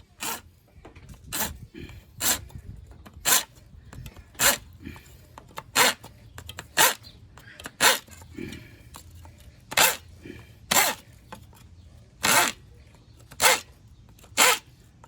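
Hand saw cutting through a piece of wood, with short rasping strokes about once a second.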